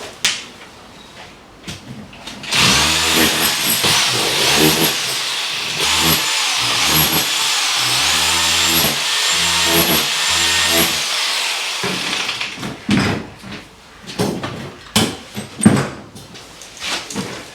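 Power drill running into the wall for about nine seconds, its motor pitch rising and falling as the trigger is worked, stopping near 12 seconds; a few sharp knocks follow.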